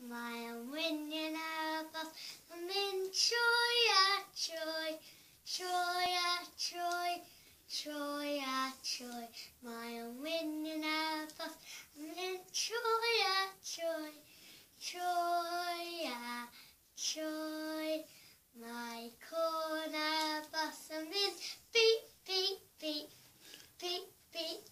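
A young girl singing a song alone, with no accompaniment, in a series of short held notes with brief breaks between phrases.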